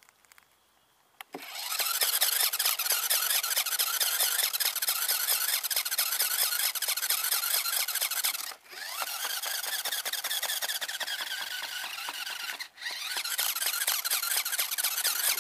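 A small motor in a homemade contraption, its taped-on metal part spinning, starts about a second in and runs with a harsh, high-pitched rattling whir, cutting out for an instant twice.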